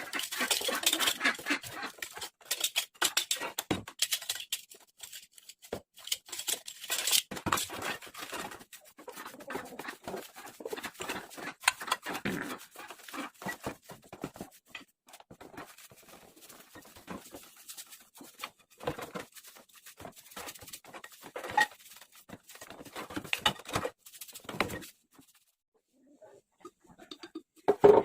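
Irregular scraping, brushing and tapping of hand work, busier in the first half, with a brief pause near the end followed by a sharp knock.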